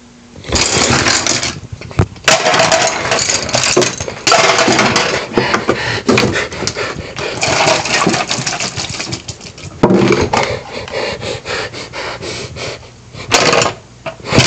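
Kitchen-sink garbage disposal running loudly with water splashing in the basin, cutting out briefly a few times and starting again.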